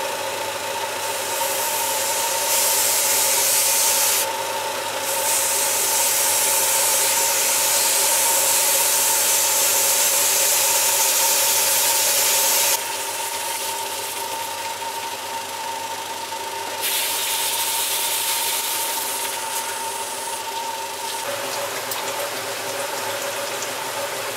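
Car engine idling steadily with a constant whine, while a stream of green coolant pours out of a flush hose hung off the radiator and splashes below. The hiss of the pouring comes and goes in stretches, loudest through the middle.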